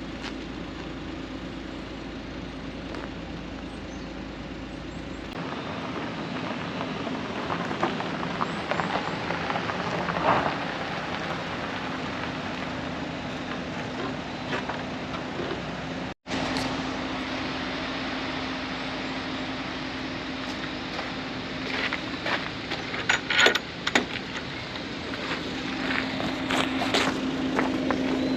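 Car moving slowly over deep, loose gravel: the engine runs steadily under tyre noise, and in the second half stones crackle and pop under the tyres.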